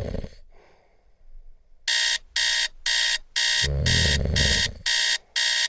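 Electronic alarm clock beeping in rapid, evenly spaced pulses, about two a second, starting about two seconds in. A low thump sounds under the beeps a couple of seconds later.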